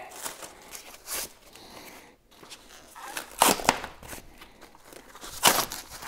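Cardboard and foam packaging being pulled off a bicycle: rustling and crinkling broken by a few short scrapes and knocks, the loudest about three and a half and five and a half seconds in.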